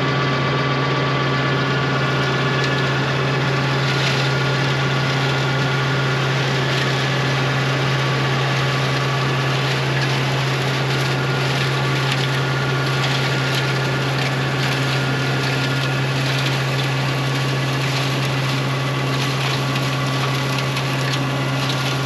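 TYM 574 diesel tractor driving a PTO-powered Titan 185 flail mower, the rotor grinding up dry brush and grass. A steady loud hum with scattered crackles of material being shredded.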